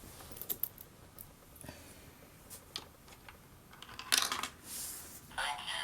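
Light plastic clicks, then louder clattering about four seconds in and again near the end: a coin and LEGO parts rattling in a LEGO Mindstorms EV3 coin-operated marble vending machine as it takes a coin.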